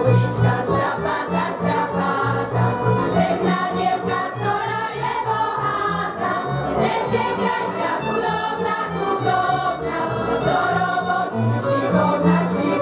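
A group of voices singing a Slovak folk song together in chorus, over steady low held notes.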